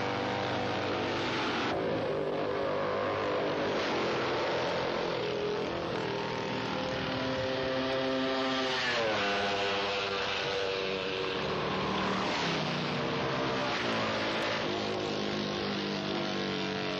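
Classic racing motorcycle engines running hard, the exhaust note rising and falling as bikes go past, with a clear downward sweep in pitch about nine seconds in.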